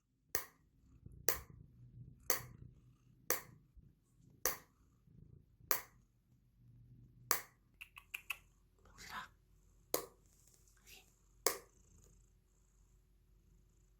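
Sharp metallic clicks from a cat food can being tapped, about one a second, with a quick run of clicks about eight seconds in: the can sound used to call the cats to food.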